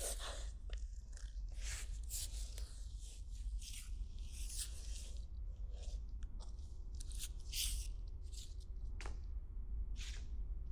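Irregular crunching and crackling noises, short and uneven, over a low steady hum.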